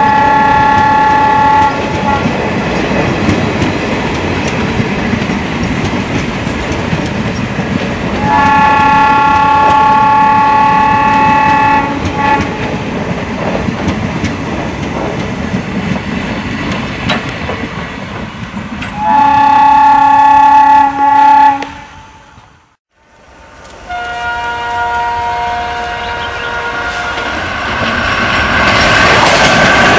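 Passenger coaches rumbling past with the click of wheels over rail joints, while a train horn sounds three long blasts. After a brief drop to near silence about 23 seconds in, a differently pitched horn sounds for about three seconds and a WAP-4 electric locomotive-hauled train approaches, growing louder near the end.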